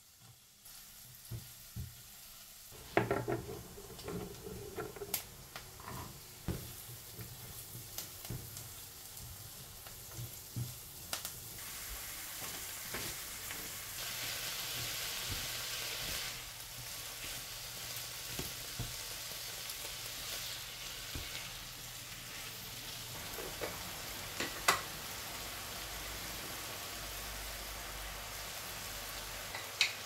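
Chopped onion, carrot and minced meat frying in a nonstick pan, sizzling steadily as it is stirred with a silicone spatula. The sizzle starts about three seconds in and grows fuller partway through. A few sharp clacks of the spatula against the pan come near the end.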